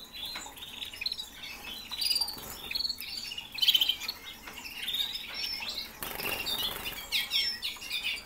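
Domestic canaries chirping and trilling, several birds calling over one another in quick, high, pitch-changing notes.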